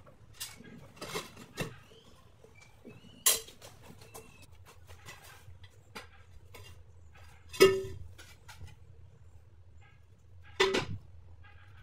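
Ceramic floor tiles clacking and clinking against each other and the floor as they are handled and set down: a scatter of sharp knocks with a short ring, the loudest two about two-thirds of the way in and near the end, over a low steady hum.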